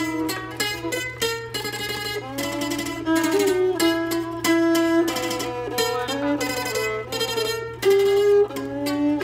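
Jakhe, the Thai three-stringed floor zither, plucked with a plectrum, playing a melodic phrase. Many notes are rapidly re-plucked in tremolo, and some bend in pitch.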